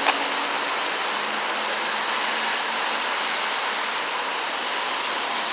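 Steady rushing noise of road traffic on a busy highway, with a faint hum that fades out in the first couple of seconds and a single click at the start.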